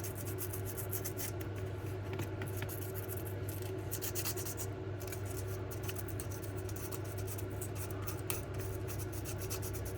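Fine emery cloth rubbing gently on the thin copper of a Hornby B12 motor's armature, a continuous light scratching that cleans the dirt off it, over a steady low hum.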